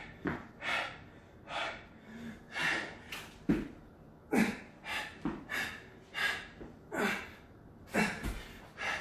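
A man breathing hard and fast during burpees, short loud breaths coming more than once a second, with a couple of dull thuds of his body landing on the floor mat.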